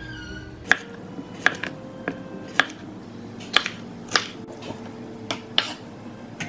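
Kitchen knife slicing a bell pepper on a wooden cutting board: about ten sharp, irregular taps of the blade striking the board.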